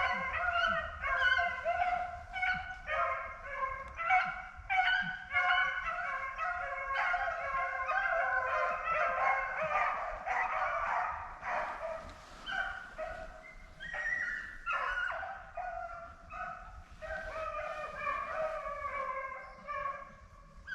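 A pack of rabbit hounds baying together as they run a rabbit's trail, many overlapping voices at different pitches. It grows fainter after about twelve seconds.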